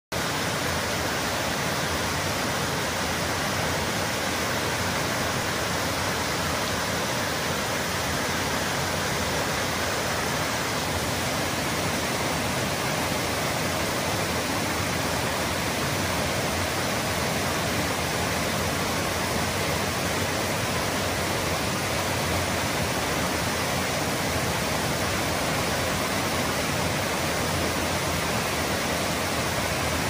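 Waterfall on a mountain creek: white water cascading over stepped rock ledges with a steady, unbroken rush.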